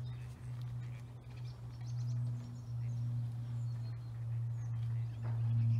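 Outdoor ambience: a steady low hum with faint bird chirps over it.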